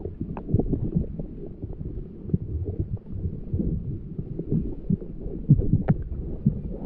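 Muffled underwater sound heard through a camera's waterproof housing: irregular low thumps and rumble from movement in the water, with a few short sharp clicks.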